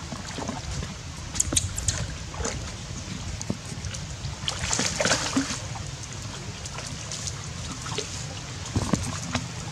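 Water splashing and sloshing as monkeys swim and paddle in a pond, in scattered bursts with the busiest splashing about five seconds in, over a steady low rumble.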